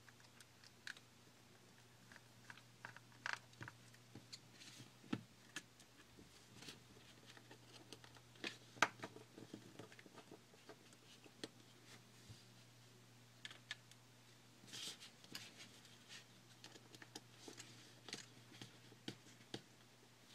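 Faint, irregular small clicks and taps of a precision screwdriver working the tiny corner screws inside an iPhone 4, over a low steady hum.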